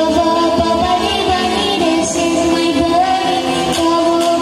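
A young girl's singing voice over a pop backing track with a steady beat, both amplified through PA loudspeakers; the melody moves in held, sustained notes.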